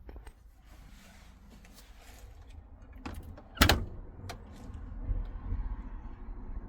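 Van engine idling with a steady low rumble, running to charge the 12 V supply for the fridge. Over it come scattered clicks and a loud knock about three and a half seconds in, with a smaller one shortly after.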